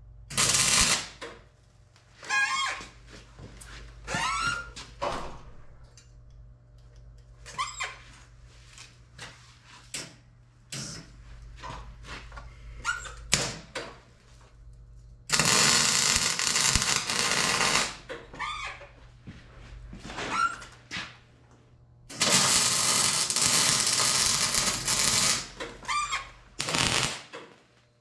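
MIG welder arc crackling on steel: a string of short tack welds, then two longer runs of steady crackle lasting about three seconds each, in the middle and again later on.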